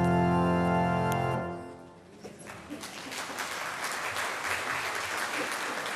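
Pipe organ holding the final chord of a chorale postlude, released about a second and a half in, with a short reverberant fade. Applause starts about half a second later and carries on.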